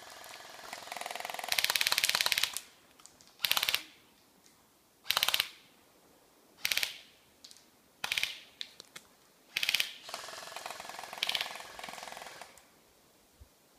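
Airsoft electric guns firing on full-auto: a long rattling burst, then several short bursts about a second and a half apart, and another longer spell of rapid fire near the end.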